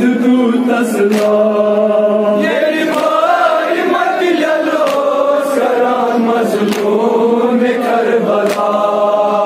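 A crowd of men chanting a mourning lament together in long, held, gliding lines, with a few sharp slaps or claps cutting through.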